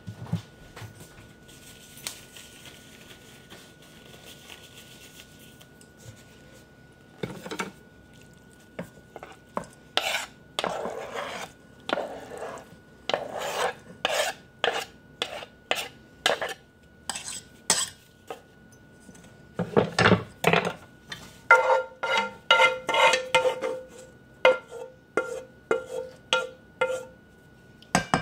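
Food scraped off a wooden cutting board into a stainless steel mixing bowl, then stirred with a wooden spoon. The spoon knocks against the bowl about twice a second, and each knock sets the bowl ringing.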